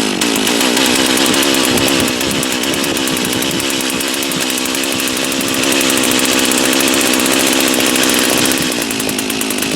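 Gas-powered ice auger's small two-stroke engine running steadily at high speed, its pitch wavering slightly, as it drills a hole through lake ice.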